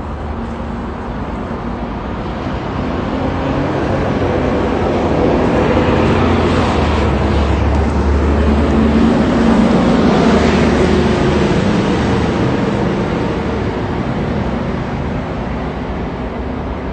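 Road vehicle noise, a steady rush with a low hum, swelling over several seconds to its loudest about ten seconds in and then fading away.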